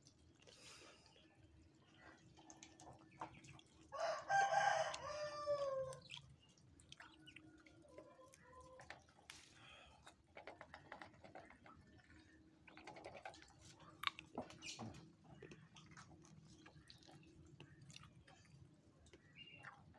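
A rooster crows once, about four seconds in: one long call of about two seconds that drops in pitch at the end. Small scattered clicks and ticks come before and after it.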